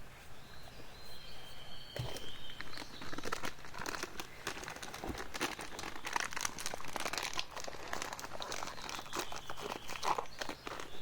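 Crinkling and crackling of something being handled, like packaging or a plastic bag: dense, irregular crackles that begin about two seconds in and keep going. Thin high whistles sound near the start and again near the end.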